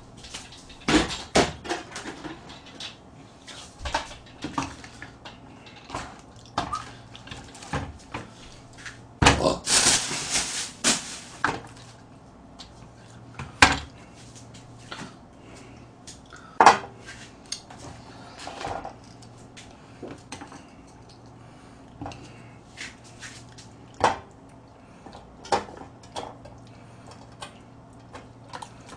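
Knocks, clacks and clatter from setting up a portable gas stove: it comes out of its hard carrying case, is put on a table, and a metal pot is placed on it. About nine seconds in there is a louder rush of noise lasting about two seconds.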